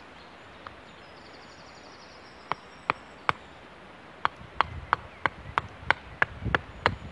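Small hatchet, a Hultafors Classic Trekking, chopping into a wooden spoon blank with short, light strokes to cut a V-notch. Three sharp knocks come about two and a half seconds in, then a steady run of about three knocks a second.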